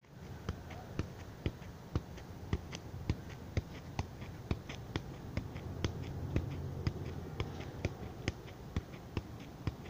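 Football being juggled with the feet: a steady run of light thuds as the boot strikes the ball, about two touches a second, over a low steady background rumble.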